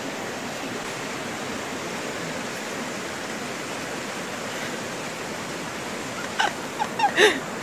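Steady rushing of a fast-flowing, muddy river running high over rocks. Brief voices break in near the end.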